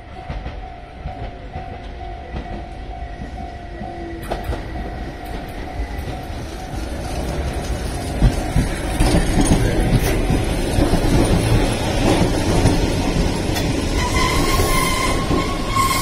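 Keihan 600 series electric train pulling into the station, growing louder as it approaches, with wheels clicking over the rail joints. A squeal from the brakes or wheels comes as it slows near the end.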